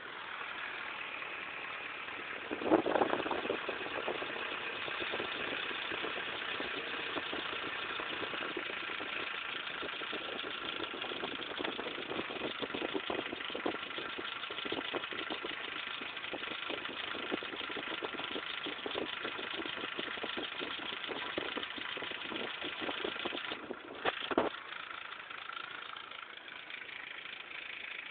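ZMZ-409 inline-four petrol engine starting about three seconds in, then idling with a rapid ticking knock running through it. The owner suspects a hydraulic lifter knock after the oil ran nearly empty, but is not sure. Another sharp thump comes near the end.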